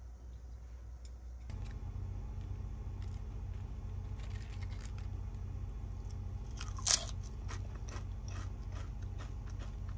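Crisp nori-salt potato chips being bitten and chewed close to the microphone: many short crunches and crackles, with one much louder crunch about seven seconds in.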